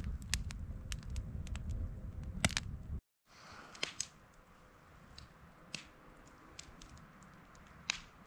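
Wood campfire crackling, with frequent sharp pops over a low rumble. About three seconds in the sound cuts out abruptly, then comes back much fainter, with only a few scattered pops.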